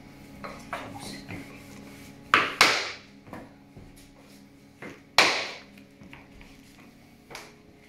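Sharp wooden knocks as three-ply oak parquet boards are tapped together and locked at their click joints: a quick pair of knocks about two and a half seconds in, a loud single knock a little after five seconds, and fainter taps in between.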